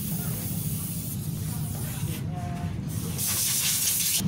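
Compressed air from a blow gun hissing through a scooter carburettor as it is blown clean, with a fainter hiss about a second in and a loud blast from about three seconds in. A steady low hum runs underneath.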